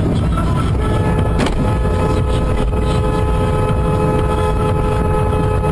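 Steady road and wind rumble heard from inside a car on a snowy highway, with a car horn sounding one long, unbroken two-tone blast of about five seconds starting about a second in. A single sharp knock comes about a second and a half in.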